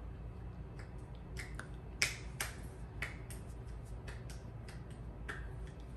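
A rapid, uneven series of sharp clicks, roughly three a second, the loudest about two seconds in, over a faint low hum.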